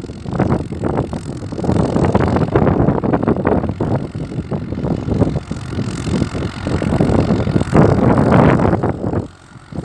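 Wind buffeting the microphone in irregular gusts over a distant Massey tractor's engine running as it pulls an implement across the field. The gusting drops away briefly near the end.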